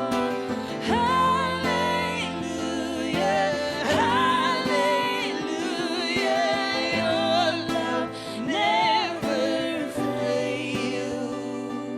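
Live worship song: a voice sings long held notes with vibrato over steady instrumental accompaniment.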